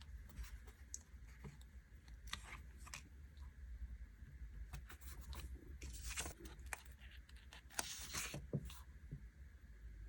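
Faint paper-crafting sounds: stickers and paper being handled, with short crackles, rustles and light clicks coming in bursts over a steady low hum.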